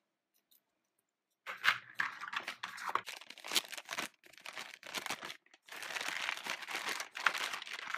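Packaging being handled during a toy unboxing: crinkling, crackling and tearing, starting about a second and a half in and continuing in irregular handfuls.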